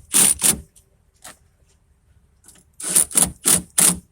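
Ratchet wrench run down in short strokes, four quick bursts of clicking and then four more about three seconds later, as the bolts holding the window glass to the regulator are snugged down.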